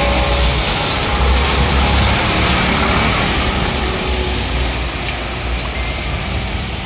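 Heavy rain and traffic on a wet road: auto-rickshaws and cars hissing past on wet tarmac over a steady low engine rumble, easing slightly after the first couple of seconds.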